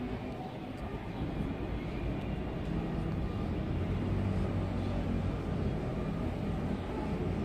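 Steady low background rumble, like a distant engine, swelling slightly in the middle.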